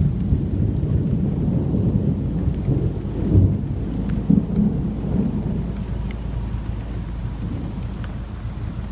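Thunder rumbling with rain falling, heard from inside a car with the windows cracked open. The rumble swells about three and a half seconds in and eases off toward the end.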